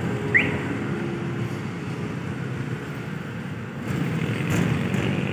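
Low, steady rumble of a KAI diesel-electric locomotive running as it rolls slowly over the station points, mixed with road traffic. A single short, high rising chirp comes about half a second in, and the rumble grows louder near the end.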